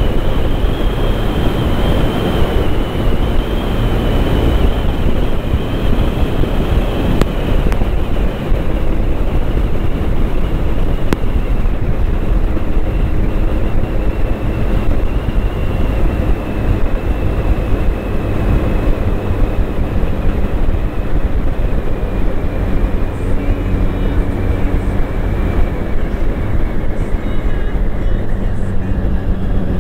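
Wind rushing and buffeting over a camera on a moving motorcycle at road speed, with the bike's engine droning steadily underneath and a thin high whine that wavers slightly in pitch.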